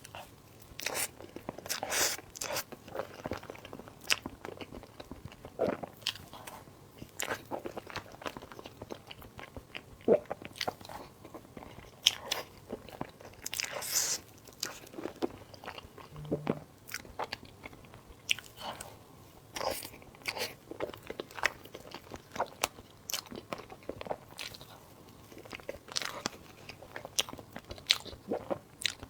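Close-miked eating: a person biting and chewing food, with irregular mouth clicks several times a second.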